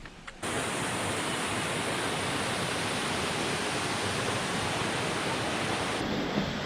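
Steady rush of water cascading through rock pools, starting abruptly about half a second in.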